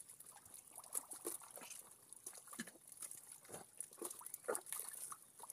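Wet mud and shallow muddy water squelching and splashing in short, irregular bursts as hands grope through it for fish.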